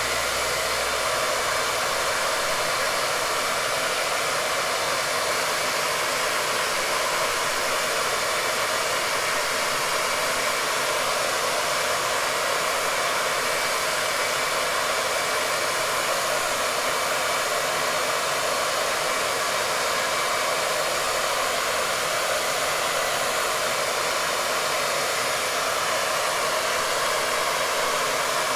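Wavytalk hair dryer with a diffuser attachment running continuously: a steady, even rush of blown air and fan.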